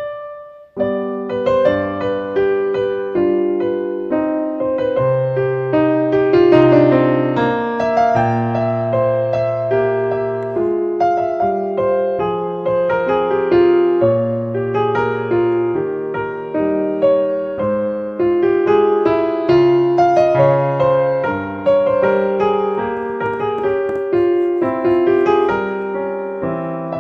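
Background piano music: a continuous run of struck notes over lower sustained bass notes. It breaks off briefly about a second in, then plays on.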